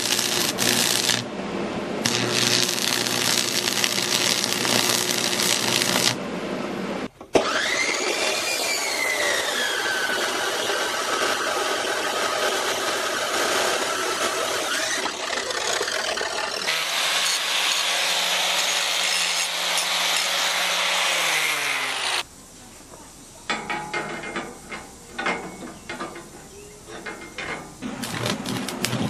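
Stick (arc) welding crackling and hissing for the first several seconds. Then an abrasive chop saw cuts steel: its motor whine dips and rises as the cut-off wheel bites, runs steady, and winds down about two-thirds of the way through. Near the end there is fainter, uneven crackle of stick welding.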